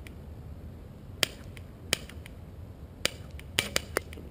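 Airsoft BBs striking the hockey puck targets and the concrete around them: sharp single clicks, two about a second apart, then a quick cluster of four near the end.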